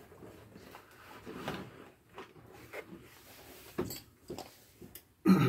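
Scattered light knocks, clicks and rustling from hands handling parts and panels of a boat's helm console, with a louder knock about five seconds in.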